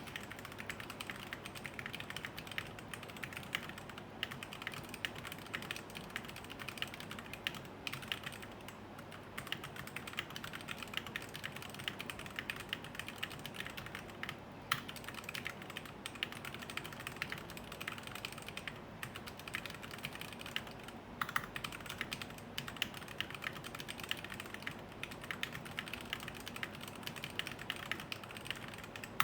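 Fast, continuous typing on a mechanical keyboard with Gateron Yellow linear switches: a dense patter of key clicks at about 109 words per minute, with a few brief pauses.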